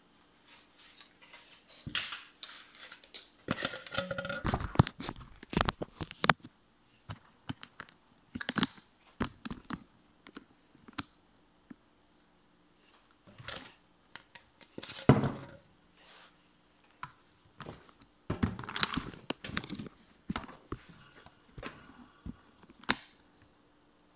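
Irregular knocks, clunks and rustling of objects and the phone being handled, in short clusters with quiet gaps between; no motor is running.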